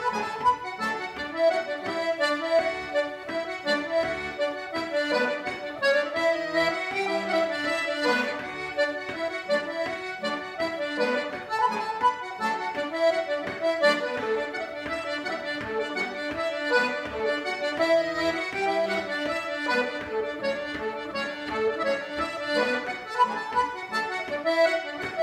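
Accordion playing a tune: a quick-moving melody over held chords, as a sound sample of the instrument.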